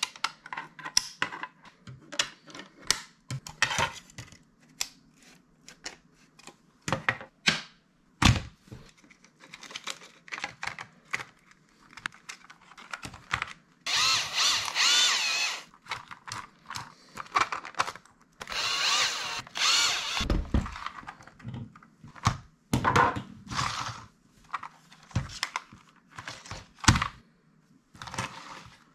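Hard 3D-printed plastic parts being handled and fitted together, giving a run of sharp clicks and knocks. About halfway through, a Bosch cordless drill-driver runs twice, for a second or two each time, with a whining motor as it drives screws into the plastic track assembly.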